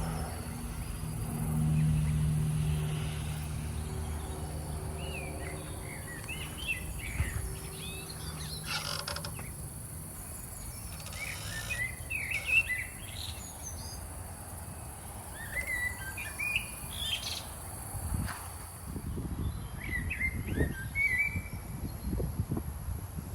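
Small birds chirping in short, scattered calls. A low hum swells about two seconds in and fades away by about ten seconds.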